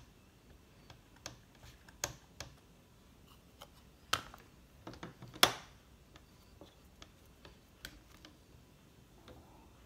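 Scattered light clicks and taps from hands working a Stamparatus stamping platform and its magnets while stamping an image a second time, with two louder knocks about four and five and a half seconds in.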